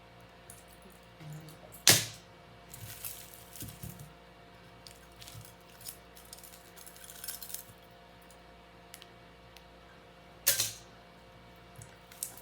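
Pieces of jewelry being handled on a table: light metallic clinking and rustling, with two sharp clacks, one about two seconds in and one near the end.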